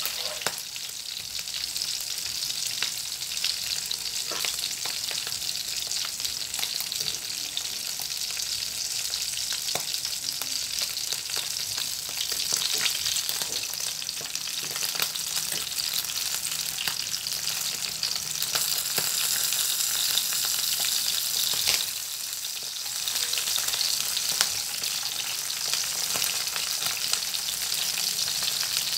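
Daing (salted, sun-dried fish) sizzling and crackling in hot oil in a frying pan, with a utensil turning the fish about halfway through. The sizzle gets louder in the last third.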